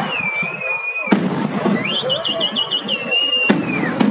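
Whistling fireworks: a high whistle wavers for about a second and is cut by a bang, then a second whistle rises, warbles, holds and falls away, with another bang near the end.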